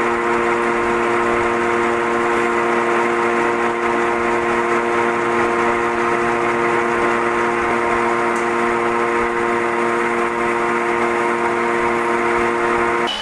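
Metal lathe turning down a steel bar under a cutting tool: a steady machine whine of several tones over an even hiss.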